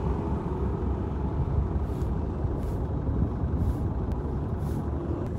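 Truck engine idling, a steady low rumble.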